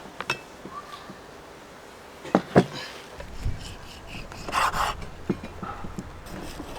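Knife cutting soft offal on a wooden chopping board: a few sharp knocks of the blade against the board, two loud ones close together about two and a half seconds in, with rubbing and scraping between.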